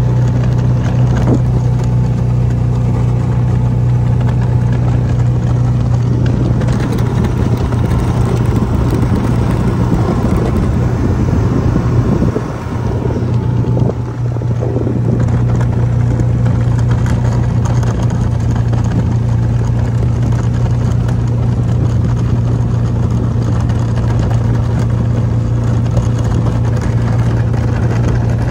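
Kawasaki Mule utility vehicle's engine running steadily at an even speed while driving, easing off briefly twice about halfway through.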